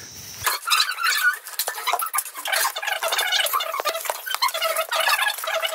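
Rapid clinking and clattering of steel pots, plates and utensils as food is served at a table, thin and tinny with no bass, starting about half a second in.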